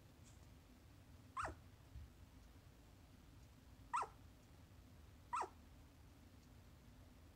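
Sleeping corgi puppy giving three short, high yips that slide down in pitch, a second or two apart: a puppy vocalising in its sleep.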